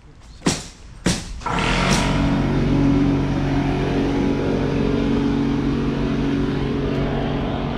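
Two sharp knocks, then a car engine running steadily from about a second and a half in.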